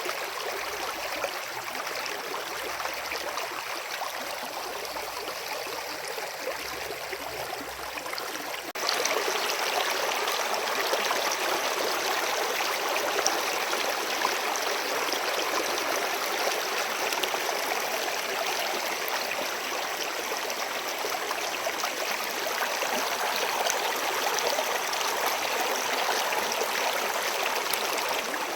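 Steady rushing noise of running water, with no distinct splashes or tones; about nine seconds in it jumps abruptly to a louder, fuller rush that then holds steady.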